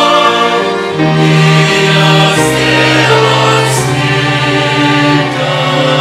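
Voices singing a hymn together in Russian, accompanied by violins, with long held notes over a bass line that changes pitch every second or two.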